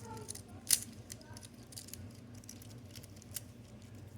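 Infinity cube fidget toy being flipped and folded in the hands: scattered light clicks of its little hinged cubes, with one sharper click about three-quarters of a second in.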